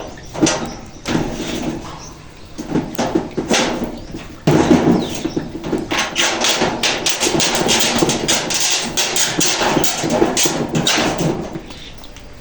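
Knocking and rattling clatter of hands-on building work on a house roof. The knocks are sparse at first, then come in a dense, fast run from about four seconds in until near the end.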